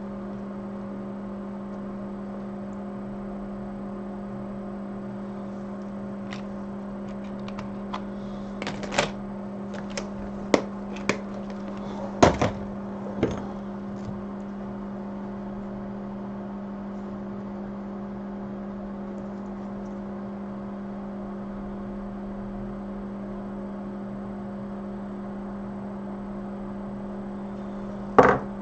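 Steady electrical hum of bench equipment, with a handful of sharp clicks and taps of small tools on the workbench between about 8 and 14 seconds in and one louder click near the end.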